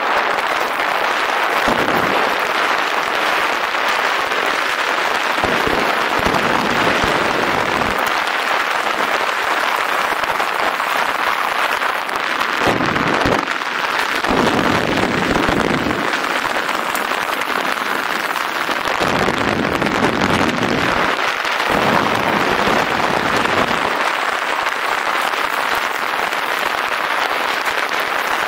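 Rushing, crackling noise of a downhill ride: wind on the microphone and tyres over a rough, stony track, with deeper rumbles coming and going several times.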